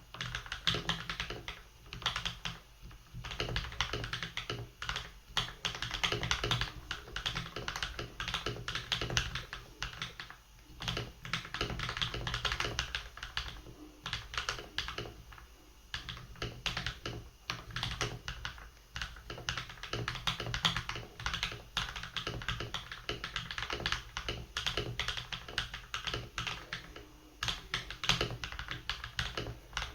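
Fast continuous typing on a HyperX Alloy mechanical keyboard with linear Kailh Silver Speed switches, a dense run of key clicks with a few short pauses, over a low steady hum.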